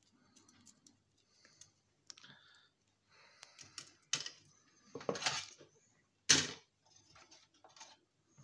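Clicks, rattles and scrapes of plastic and metal parts being handled and cut as an electronic unit is stripped for scrap. The loudest is a sharp click a little over six seconds in.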